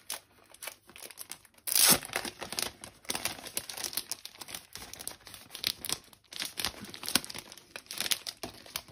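Clear plastic sleeve crinkling and rustling as it is handled and a stack of A4 photo prints is slid out of it, with a louder crackle about two seconds in.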